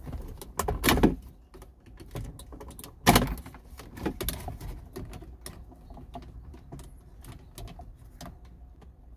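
Flathead screwdriver prying at stiff plastic wiring-connector latches behind a Kia Morning's centre dash panel: a run of small plastic clicks and scrapes, with two louder knocks about one and three seconds in.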